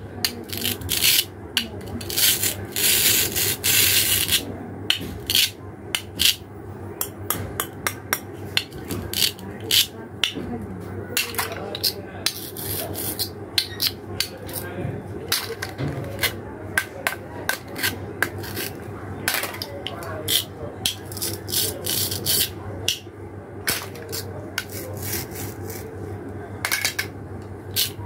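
Plastic toy fruit and vegetable halves joined by velcro being pulled apart with a rasping rip and pressed back together, amid many sharp irregular clicks and taps of the hard plastic pieces. One longer rasp a few seconds in.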